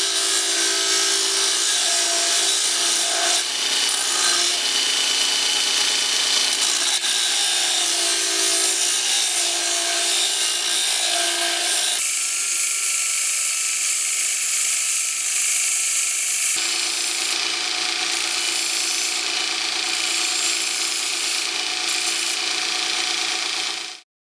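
JET Multitool, a combined bench grinder and belt sander, running while metal is ground on it: a steady motor tone under a loud abrasive hiss. The sound shifts abruptly twice, then cuts off at the end.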